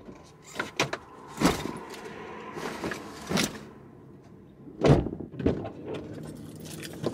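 Knocks, clicks and rustling around a parked car's driver door, heard from inside the cabin; the loudest thump comes about five seconds in.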